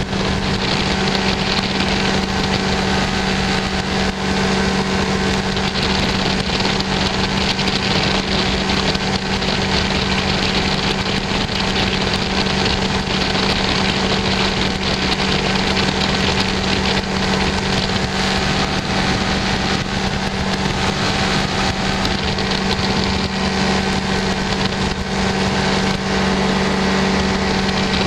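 Small light aircraft's engine and propeller droning steadily in level cruise flight, with one strong, even hum.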